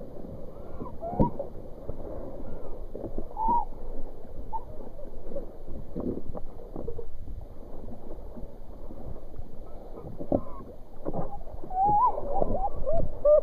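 Choppy sea water slapping and splashing against a kayak, with irregular knocks from the hull and paddle, heard muffled. Faint wavering pitched tones come and go, more of them near the end.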